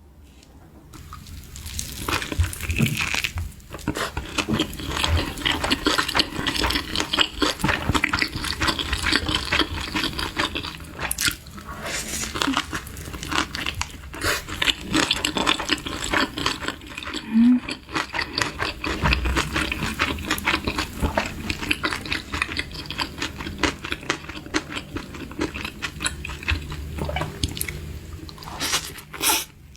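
Close-miked eating sounds: wet slurping and chewing, made up of many small smacks and clicks.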